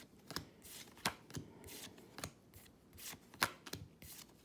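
Disney Lorcana trading cards being handled and flipped through one at a time: a string of short, sharp card flicks and slides at irregular intervals, the loudest about three and a half seconds in.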